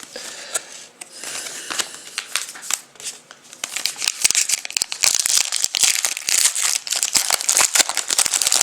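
Plastic card wrapping crinkling and rustling as trading cards are handled, busier and louder in the second half.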